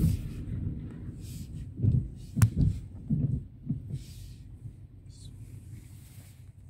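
Low rumble inside a car on a wet road, fading toward the end, with a few dull thumps and one sharp click about two and a half seconds in.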